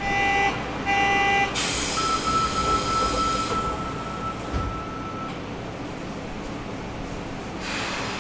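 Door buzzer of a Sendai subway 1000N series car sounding twice, a thin whine like a mosquito, followed by a burst of air hiss as the pneumatic doors close.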